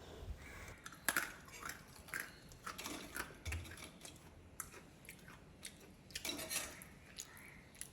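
Crisp sharkara varatti, fried plantain chips coated in jaggery, being bitten and chewed: a string of short, sharp crunches, the first loud one about a second in and another bunch about six seconds in. The crunch is the sign that the chips have cooled and come out properly crisp.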